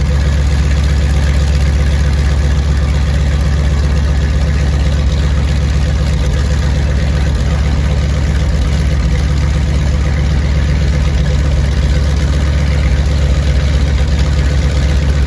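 Douglas C-53D Skytrooper's Pratt & Whitney R-1830 radial engines running at a steady idle after start-up, an even low rumble with no change in speed.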